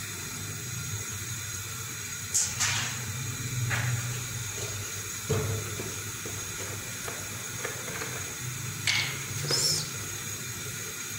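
Gas stove burner hissing steadily under an empty pot, with a low hum and a few brief, sharp knocks or clicks scattered through.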